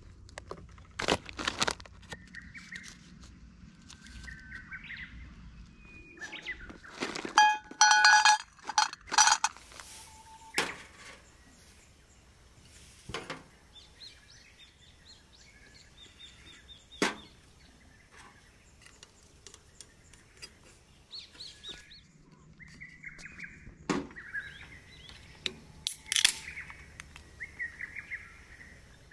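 Small birds chirp now and then behind a series of clinks and knocks of metal on a stainless steel camp table, with ringing metallic tones about a third of the way in. Near the end a beer can's tab snaps open in a short burst, described as sounding great, with natural reverb from the surrounding trees.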